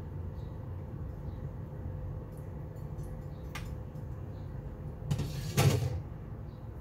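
A steady low hum with a faint steady tone running under it, a few faint ticks, and two brief louder thuds close together about five seconds in.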